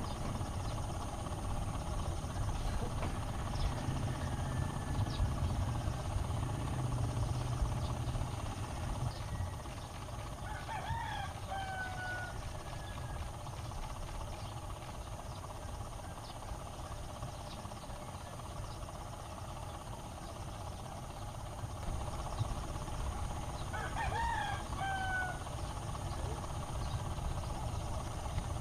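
A rooster crowing twice, the two crows about fourteen seconds apart, over a steady low rumble.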